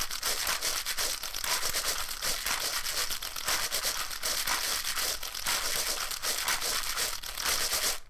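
Dense, continuous crinkling noise made of many small crackles, mostly high-pitched, that cuts off suddenly at the end.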